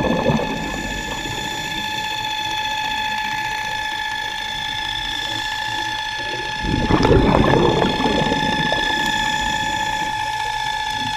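Scuba regulator exhaling underwater: a crackling burst of exhaust bubbles about seven seconds in, and a shorter one at the very start. Under it runs a steady high whine with several overtones.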